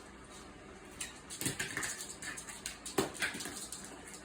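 Cockatoo playing with a bottle: scattered light knocks and taps, the loudest about three seconds in.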